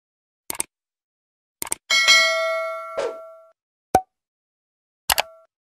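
Subscribe-button animation sound effects: a few short clicks, then a bright bell-like chime about two seconds in that rings with many overtones and fades over about a second and a half. A sharp pop follows about four seconds in, and a brief ding near the end.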